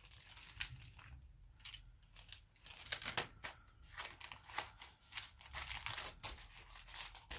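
Paper and plastic packaging crinkling and rustling as it is handled, a faint run of small irregular crackles.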